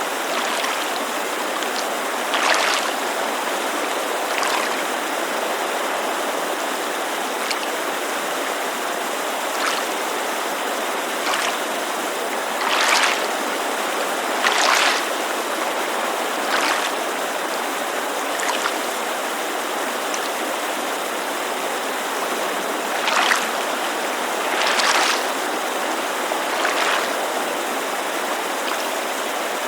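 Water lapping against a lakeside shore in short, irregular splashes every couple of seconds, over the steady rushing hiss of a mountainside creek.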